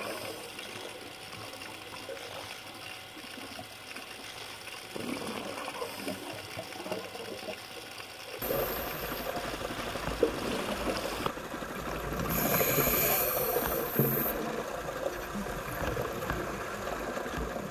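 Muffled underwater noise picked up through a camera housing: a steady water rush that grows louder and fuller about halfway through. It swells into a louder stretch around three-quarters of the way in.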